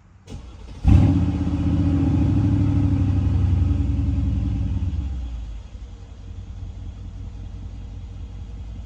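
Mercedes-AMG GLE 63 S twin-turbo V8, decatted with downpipes, starting up with a sudden loud catch about a second in. It runs loud and steady for about four seconds, then settles to a quieter idle, with no high cold-start idle because that function has been disabled.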